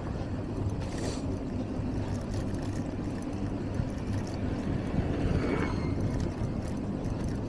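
City street noise heard from a moving bicycle: a steady low rumble of traffic and rolling, with a few light clicks.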